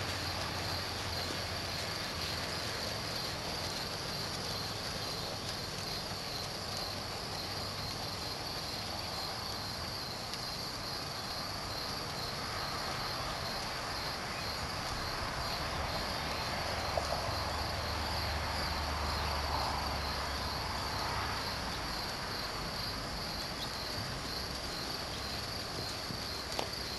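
Crickets chirping in a steady chorus, a pulsing high trill that goes on without a break.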